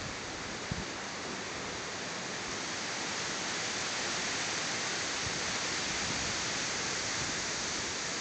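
Hurricane-force wind of Irene rushing through trees: a steady rain-like hiss that swells a little in the middle.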